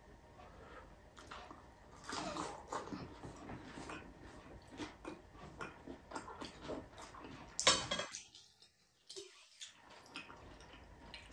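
Close-up eating sounds: a person chewing and biting crispy fried pork belly and pork, with wet mouth clicks and smacks and irregular crunches, and one sharp, loud crunch about three-quarters of the way through.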